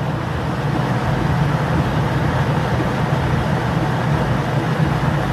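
Compact Kenmore stacked washer spinning its basket in a steady, fast spin with its motor humming, a little water still spraying in during the spin rinse. The machine is spinning properly again after its failed timer was replaced.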